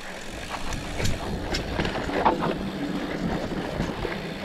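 Mountain bike rolling downhill on a dry dirt singletrack: tyre noise on the dirt and wind rumble on the microphone, with scattered clicks and rattles from the bike over bumps.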